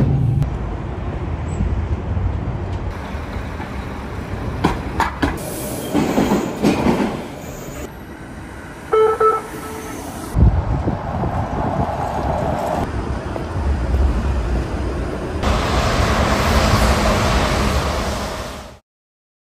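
Toronto subway trains running and passing, heard in several short recordings cut one after another. The sound stops abruptly just before the end.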